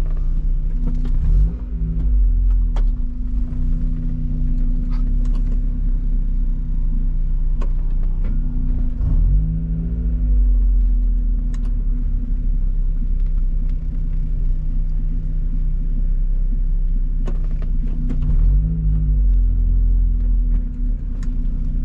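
Car engine idling, heard from inside the cabin, with three brief rises and falls in engine speed; scattered light ticks over it.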